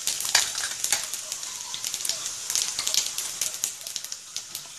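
Cumin and carom seeds sizzling in hot oil in a non-stick pan, crackling with many sharp pops: the tempering (tadka) is hot enough to make the seeds splutter.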